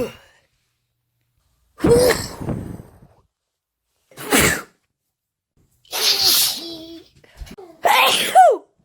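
A woman sneezing hard from hay fever, four separate sneezes about two seconds apart, the later ones ending in a voiced 'choo' that falls in pitch.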